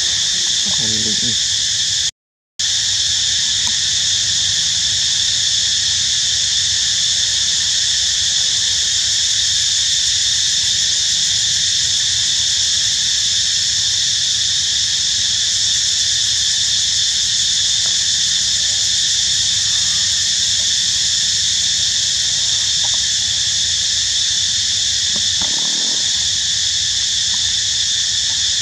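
Steady, high-pitched insect chorus droning in several bands, unbroken except for a brief dropout about two seconds in.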